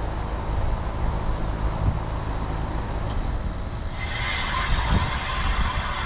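Outdoor unit of a 2002 Goodman CPLJ 5-ton heat pump running with a steady low hum. About four seconds in, a loud steady hiss sets in suddenly on top of it.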